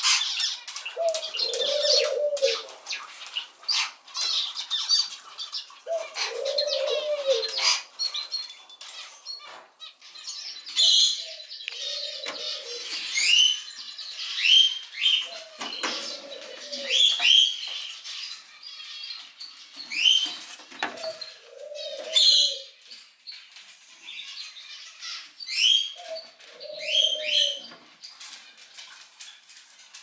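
Cockatiel calling with short rising chirps, repeated many times in the second half, over soft low cooing hoots that come every few seconds. There is rustling and clicking in the first few seconds.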